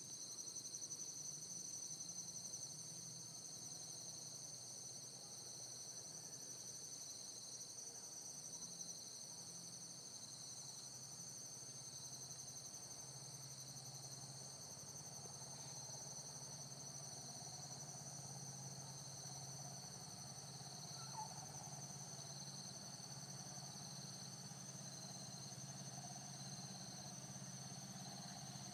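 Faint, steady chorus of insects trilling at several high pitches, with a low steady hum beneath and a single short chirp about three-quarters of the way through.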